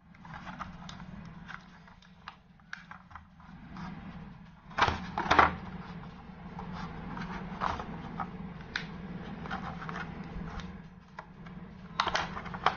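Rigid glossy plastic packaging tray being pressed and flexed by hand as a wireless mouse is worked out of its moulded cavity: scattered clicks and crackles, with a few louder cracks about five seconds in and again near the end.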